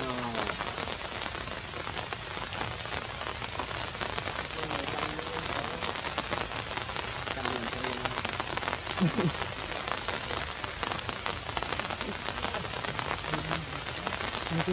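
Rain falling steadily, an even crackling hiss, with a brief low voice-like call about nine seconds in.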